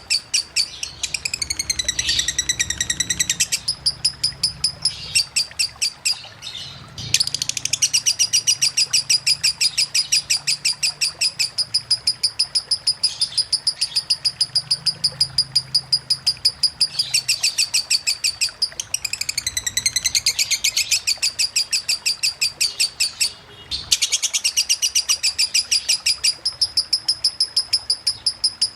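Lovebird singing a long 'ngekek' (konslet) song: a fast, unbroken run of high chattering chirps, many a second, with swooping phrases twice and two brief breaks.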